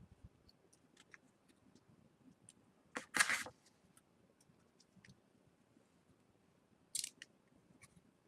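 Faint scattered ticks and clicks of thin LED wire leads being handled and twisted together by hand, with a louder short rustle about three seconds in and another near the end.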